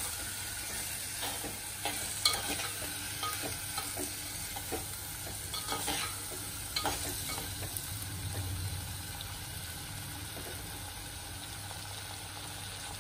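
A metal spoon stirring chopped long beans in an unglazed clay pot, scraping and tapping irregularly against the pot's sides over a steady faint hiss.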